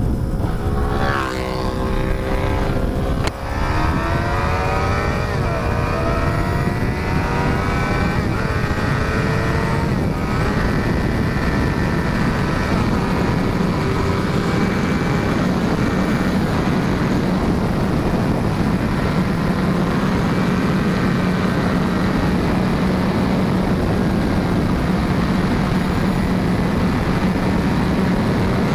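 Honda CBR600RR inline-four engine accelerating hard, its revs rising and dropping back at each upshift through several gears in the first ten seconds or so. It then holds a steady high cruising speed under heavy wind rush.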